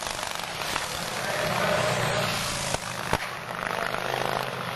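Pre-1910 board-track racing motorcycles running at speed, several engines sounding together as the pack goes past, with a single sharp crack about three seconds in.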